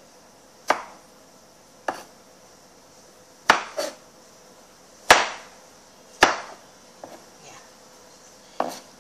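Kitchen knife chopping tomato on a plastic cutting board: seven sharp knocks of the blade hitting the board, unevenly spaced about a second apart, with a longer pause near the end.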